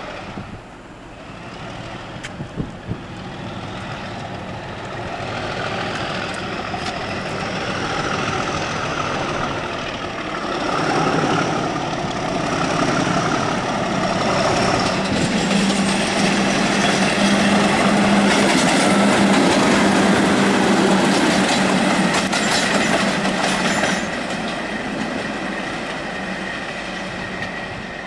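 English Electric Class 37 diesel locomotive working under power as it approaches, its engine growing steadily louder to a steady hum with a high whistle over it, while its wheels clatter over the pointwork. The hum eases somewhat near the end.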